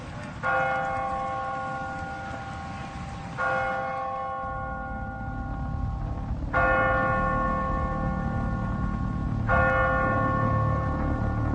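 A bell tolling, struck four times about three seconds apart, each stroke ringing on as it fades. A low rumble grows underneath from about four seconds in.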